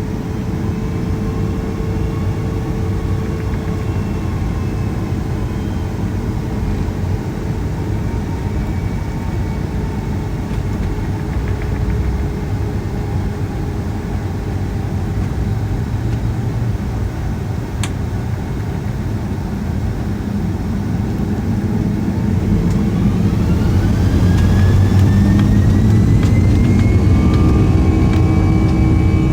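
Boeing 757-200's twin turbofan engines heard from inside the cabin, a steady low rumble at low power. About three-quarters of the way through, a whine rises in pitch and the sound grows louder as the engines spool up, typical of thrust being set for takeoff.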